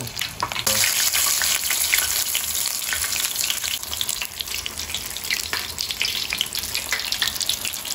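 Battered shrimp fritter deep-frying in hot oil in a wok: a steady crackling sizzle that turns louder and brighter under a second in.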